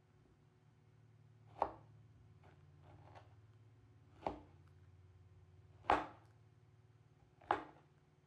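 Knife blade cutting through a lemon and striking a wooden cutting board: four sharp chops, with a few fainter knocks between the first two.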